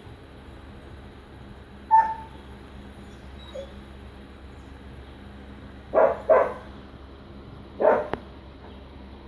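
Dog barking: a sharp high note about two seconds in, then a quick pair of barks and a single bark near the end.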